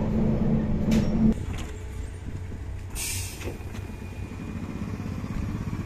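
MAZ-103T trolleybus running, heard from inside the cabin as a steady drone with a low hum, which breaks off about a second in. The trolleybus is then heard from outside as it stands with a low hum, and about three seconds in it gives a short hiss of released compressed air.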